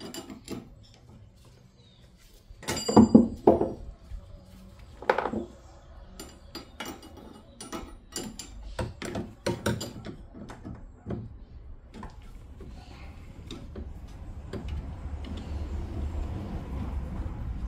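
Metal tools and car parts being handled during hand work on a car's rear suspension: a string of clicks and knocks, with a loud ringing metal clank about three seconds in and more knocks a few seconds later. A low rumbling noise builds near the end.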